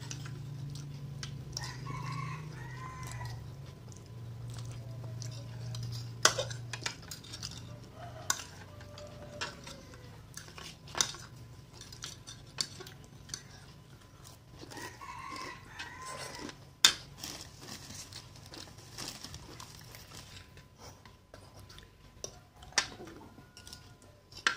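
Forks and spoons clinking and scraping on a plate during a meal of fried noodles, with sharp knocks of metal on the plate now and then. A rooster crows twice in the background, about a second and a half in and again about halfway through.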